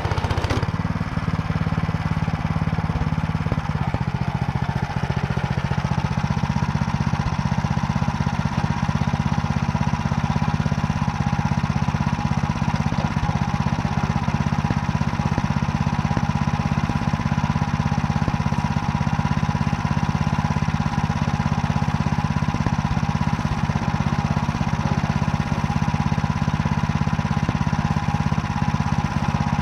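Engine running steadily under load, driving a Motor Sich rotary tiller through wet barley stubble in second gear.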